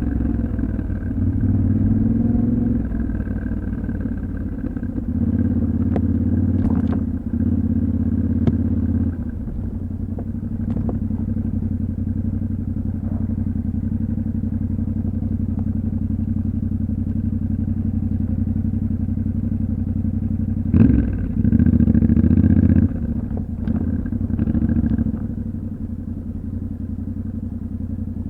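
Yamaha Ténéré 700's parallel-twin engine running under a rider on an off-road track, the throttle opening in several short bursts with steadier, lighter running through the middle. A few sharp clicks and clatters come through over the engine.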